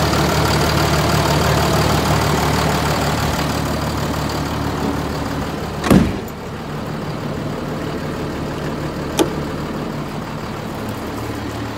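Cummins diesel engine of a Ford F650 truck idling steadily, louder at first with the engine bay open. About six seconds in there is a loud thump, after which the idle sounds quieter, and a short knock about three seconds later.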